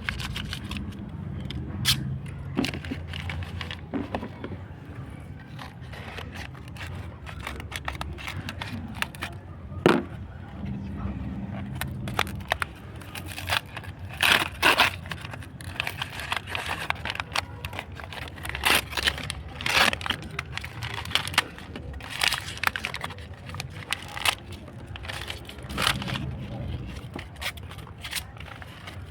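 Packaging being handled and opened: irregular rustling, crinkling and scraping with many short clicks, busiest in the middle stretch.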